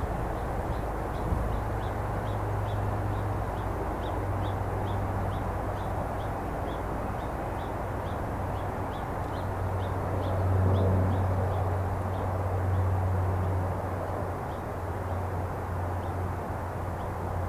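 A small bird calling in a rapid series of short, high chirps, about three a second, which stop about twelve seconds in, over a steady low hum.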